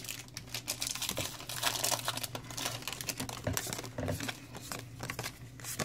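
Crinkling and rustling of a foil Pokémon booster pack wrapper and its trading cards being handled, with many small irregular clicks.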